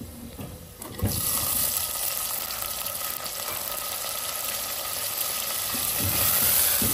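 Frozen minced beef hitting hot oil in a clay handi: a sizzle that jumps up suddenly about a second in as the icy meat lands, then runs on as a steady frying hiss.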